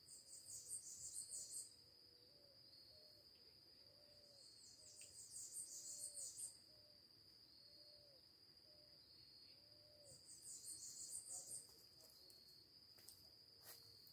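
Faint outdoor ambience of insects: a steady high-pitched drone, broken three times by bursts of rapid high chirping lasting about a second and a half each, with faint low calls repeating about once a second in between.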